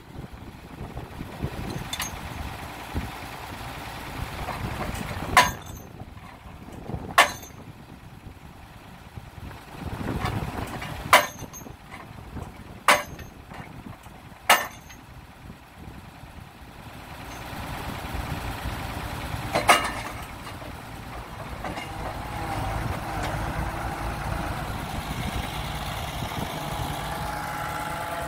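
Morooka MST800 tracked carrier's diesel engine running, with about seven sharp, ringing blows at uneven intervals from the WRAG Thrift post driver's hammer striking a post. The engine grows louder for the last third.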